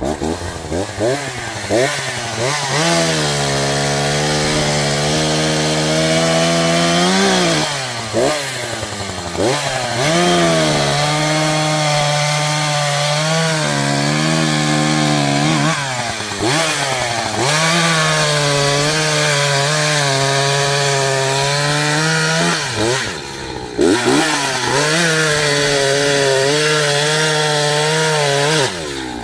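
Echo CS-590 Timberwolf two-stroke chainsaw running at high revs, cutting through a big tree. The engine pitch holds steady for long stretches, then drops and climbs again about four times as the throttle is eased and reopened.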